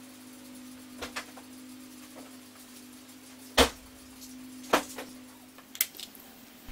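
Scattered light clicks and knocks of small tools and parts being handled and set down on a workbench mat, one sharper knock a little past halfway, over a steady low hum.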